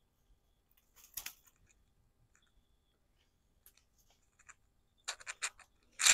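Snipping and rustling as a ripe ash gourd is cut from its vine: a few sharp clicks about a second in, then a quick run of snips near the end that ends in a louder knock.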